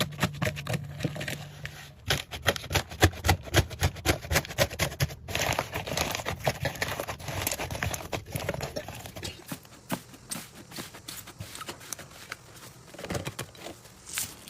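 Slime being squeezed, stretched and poked by hand, making rapid sticky clicks, pops and crackles. They thin out and get quieter for the last few seconds.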